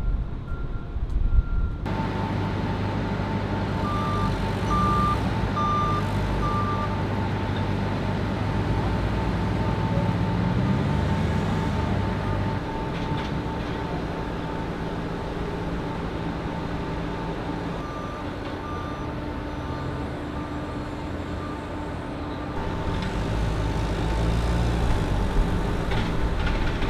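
A truck's reversing alarm beeping about twice a second as the semi backs up. Then Hyster propane forklifts run with a low engine rumble and a steady high whine, with backup beeps in short runs: four about a second apart a few seconds in, and fainter ones later.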